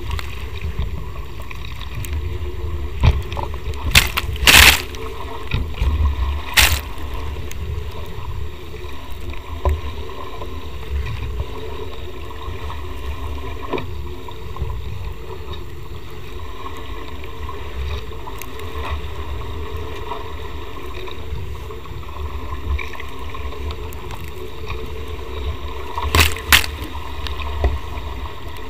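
Nacra 500 catamaran hull running fast through choppy water: a steady rush of water with wind rumbling on the microphone, and a few sharp splashes about four seconds in, about six and a half seconds in, and twice near the end.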